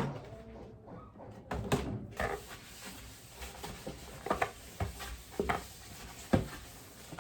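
Irregular light knocks and clunks of household objects being handled and set down, with a sharp one at the start, a small cluster about two seconds in, and single ones spaced through the rest.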